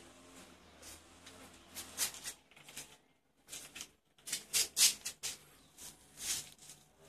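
Faint, scattered short scratchy rustles and scuffs, about a dozen over several seconds, with a near-silent gap around the middle.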